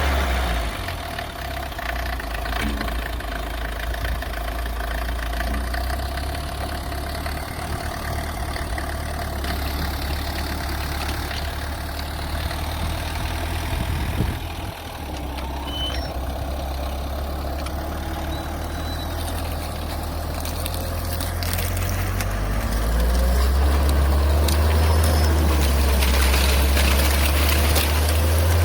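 Small engine of a homemade rotary tiller (soil-milling cutter) running steadily, dipping briefly about halfway through and running louder for the last few seconds.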